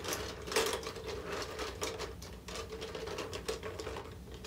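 Small letter pieces clicking and rattling against each other in irregular bursts as someone rummages through them by hand to pick out the next one.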